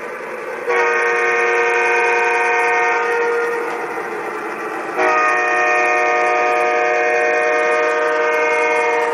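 MTH 1-gauge Conrail Dash 8 model diesel locomotive sounding its horn through its onboard sound system: a blast of about two seconds, then a longer blast of about four seconds near the end. Both sound over the steady running noise of the train.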